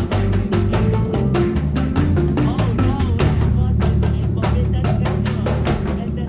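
Music with a fast, steady drum beat over a moving bass line.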